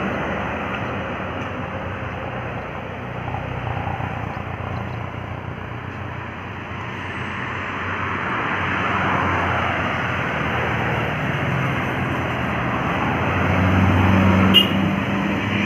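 Road traffic passing: steady tyre and engine noise, with a heavy vehicle's low engine drone swelling near the end and a single sharp click just after it.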